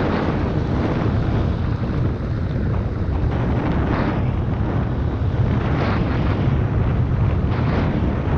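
Heavy wind buffeting the microphone over a steady low rumble, as when riding a Suzuki MX125 off-road motorcycle.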